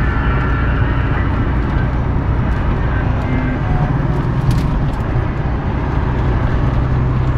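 A car driving at a steady speed on a paved road: a continuous low drone of engine and tyre noise.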